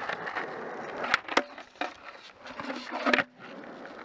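Skateboard wheels rolling on concrete with a steady grinding noise. Several sharp clacks of the board cut through it, two about a second in, another shortly after and a few more near the end.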